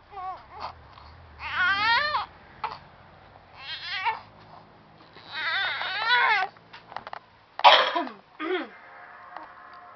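A sleepy baby fussing: a string of short, wavering, high-pitched whimpers and whiny cries, the longest lasting about a second in the middle and a sharper, louder cry near the end.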